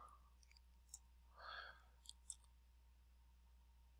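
Near silence with a few faint computer-mouse clicks, about a second in and again just after two seconds, and a soft breath in between.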